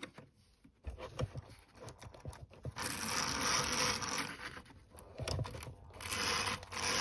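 Vintage Tri-ang R.52 OO gauge tank locomotive's electric motor and gear train running on the test track in two short spells, its wheels spinning, after a few clicks as the model is set on the rails. The run comes after cleaning and oiling, and the wheels turn as they should.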